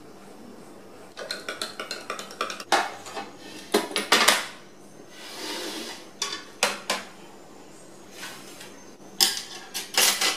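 Glassware and cutlery clinking: first a quick run of light clinks, like a spoon stirring a drinking glass, then several separate knocks as a glass and a bowl are set down on a plastic tray, with a last cluster of knocks near the end.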